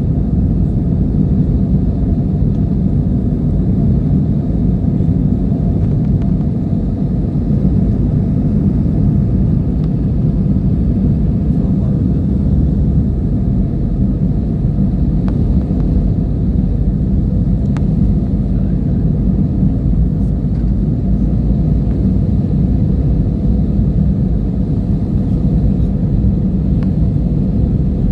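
Airliner taking off: a steady, loud, low rumble of engines and airflow that holds even throughout.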